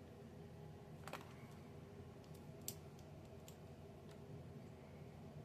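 Plastic Lego pieces being handled and pressed together: a handful of faint, short clicks scattered over a low steady room hum.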